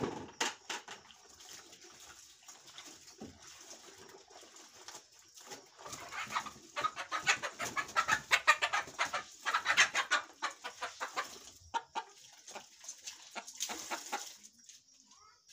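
Chickens clucking in quick runs, loudest in the middle. Near the end, water splashes onto concrete as a wet cloth is wrung out.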